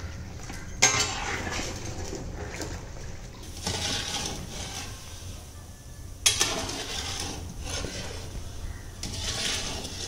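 Long metal ladle scraping and clinking against a large iron kadai as jaggery syrup is stirred at the boil over a wood fire; the jaggery is dissolving into syrup for peanut candy. Sharp loud starts come about a second in and again about six seconds in.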